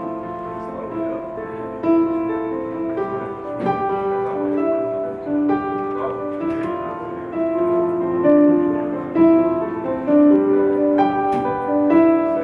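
Background music: a keyboard melody of held piano-like notes, with a few sharp taps.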